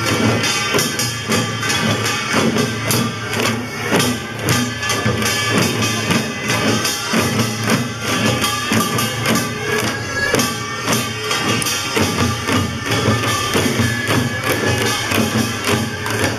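Korean pungmul folk band playing: barrel drums (buk) beaten in a fast, dense rhythm, with a double-reed horn holding long notes over them.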